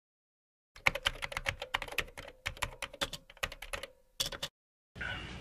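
Typing on a computer keyboard: a quick, uneven run of keystroke clicks that starts about a second in and stops shortly before the end.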